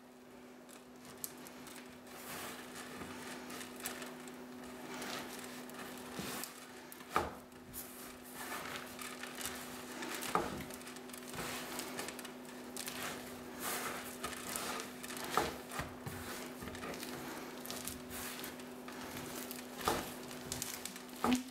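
Hands kneading crumbly shortcrust dough with chopped nuts and candied cherries on a wooden tabletop: a steady rustling and squishing of the crumbs, broken by several sharp knocks against the table.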